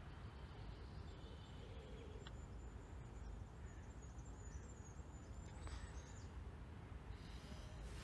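Wind buffeting the microphone as a steady low rumble, with faint high bird chirps, and a light tap of a putter striking a golf ball about two seconds in.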